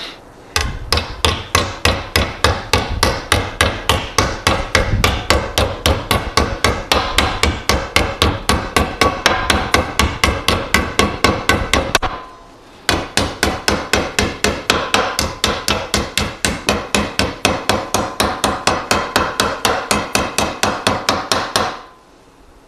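Ball-peen hammer beating a sheet-metal plate over in a bench vise to fold a 90-degree bend, a fast steady run of blows, about four a second, each with a short metallic ring. The blows stop for about a second near the middle and end shortly before the close.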